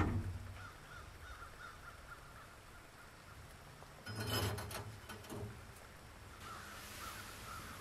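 A sharp knock at the start and a short clatter about four seconds in, like metal being handled on a grate. Behind them, faint repeated caws like a crow's.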